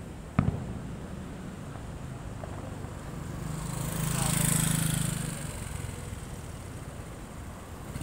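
A single sharp bang about half a second in, then a motor vehicle passing close by: engine and tyre noise swell to a peak about four and a half seconds in and fade away.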